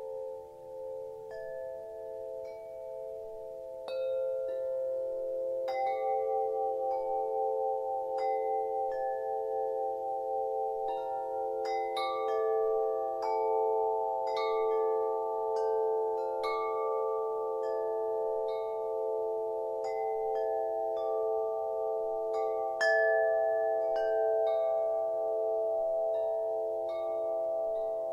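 Ambient music: several held tones, some pulsing slowly, with scattered high struck notes that ring and fade over them. It fills out and gets louder about four seconds in, with a stronger accent near the end.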